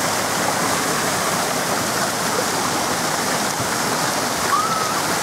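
Steady rushing and splashing of water pouring from water-park slides and fountains.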